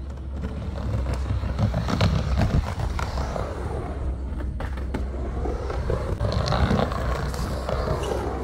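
Skateboard wheels rolling down a megaramp and across its quarter pipe, with a few sharp clacks about two seconds in. The rolling swells louder near the end.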